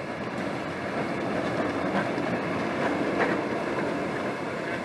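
Historic electric tram passing close by, its wheels rolling on the rails in a steady rumble with a few faint clicks.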